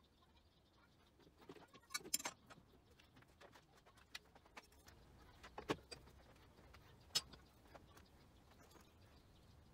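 Faint scattered clicks and light metallic taps of tooling being handled and adjusted on a metal lathe, with a small cluster about two seconds in and single sharper knocks later on.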